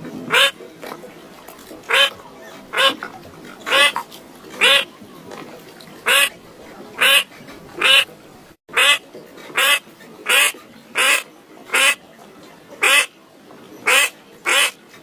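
A bird calling with short, loud, raspy calls, repeated about once a second roughly sixteen times. The sound cuts out for an instant just past halfway.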